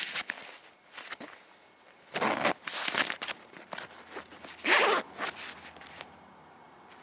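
Zipper on a fabric cushion cover of an upholstered armchair being pulled open in short rasping runs, the loudest a couple of seconds in and again about five seconds in, with fabric handling between.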